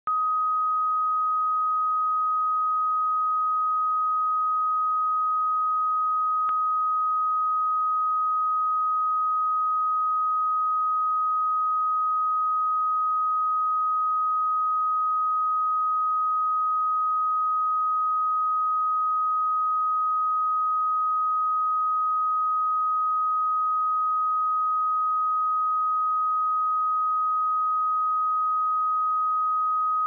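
Pure 1257 Hz sine-wave test tone, one unchanging pitch held at a constant level.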